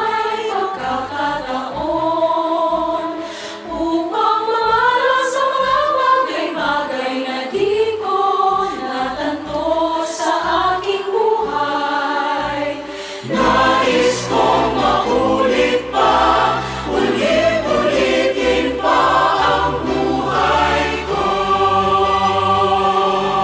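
Mixed choir singing with orchestral accompaniment of strings, timpani and brass; about 13 seconds in, the lower instruments come in and the sound grows fuller.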